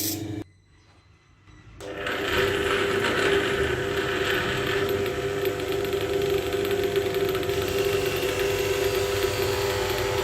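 Electric workshop tool running steadily with a constant motor hum and a rough grinding-like noise, starting about two seconds in after a brief silent gap.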